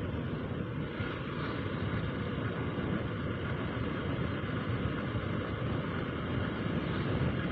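Steady wind rush and running noise of a motorcycle cruising at an even speed, heard through wind on the rider's camera microphone.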